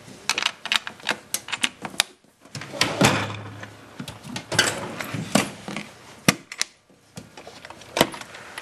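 Irregular sharp clicks, taps and knocks with a couple of short scraping stretches, from handling things at a metal storage cabinet and from the camera being moved close against its surfaces.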